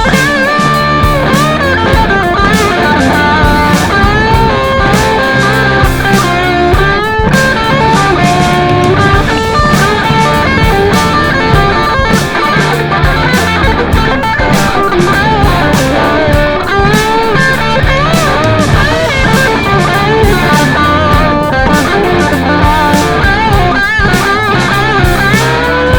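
Rock music with electric guitar lead lines over a steady bass and drum beat.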